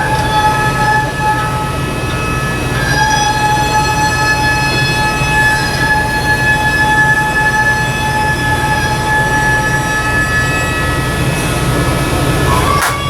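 Sustained, reed-like wind-instrument chord of several held notes, breaking off about a second in and resuming about three seconds in, over a steady low hum.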